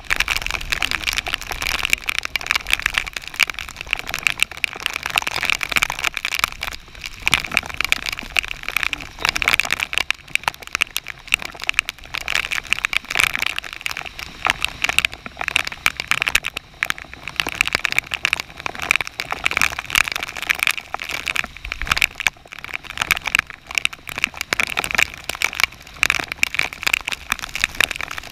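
Torrential thunderstorm rain pelting the river surface and a kayak's deck: a dense, steady patter of countless drop hits that comes in suddenly at the start and stays loud throughout.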